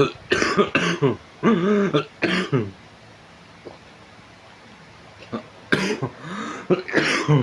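A person coughing in two bouts: four coughs close together, a pause of about three seconds, then three more near the end.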